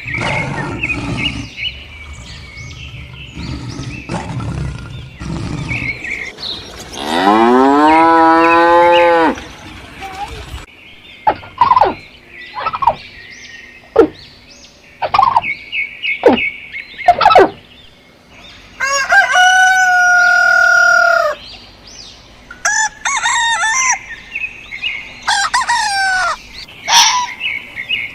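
Chickens: a rooster crowing twice, with hens clucking in short calls between and after the crows.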